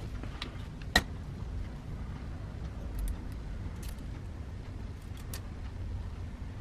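Small metal clicks and taps from handling the aluminium gear-head cover of a Metabo angle grinder as it is lifted off the housing. One sharp click about a second in, then a few fainter ticks, over a steady low rumble.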